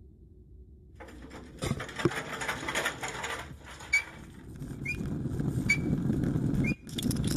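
Railway handcar rolling along the track: a rumble and clatter of wheels on rails that grows louder in the second half, with a few sharp knocks and a short squeak about once a second as it is pumped along.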